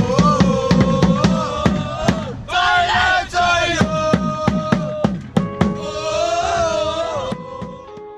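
Supporters' drum beating a fast, steady rhythm while a crowd chants in unison. The drumming breaks off briefly about two and a half seconds in, and the sound fades out near the end.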